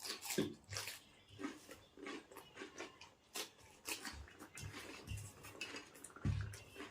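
A person chewing and crunching fruit, with irregular crisp mouth clicks and crackles, and a dull low thump near the end.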